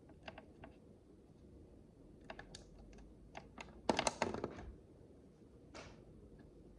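Miniature plastic micro bricks clicking as they are handled and pressed together: irregular light clicks, with a louder quick cluster of clacks about four seconds in.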